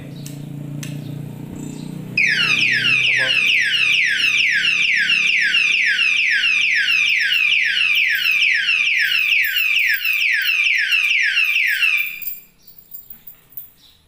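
Siren of a 110 dB anti-theft alarm padlock sounding: a loud electronic whoop that sweeps quickly downward in pitch, repeating about two and a half times a second. It starts about two seconds in and cuts off about twelve seconds in.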